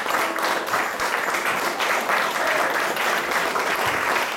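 Theater audience applauding steadily.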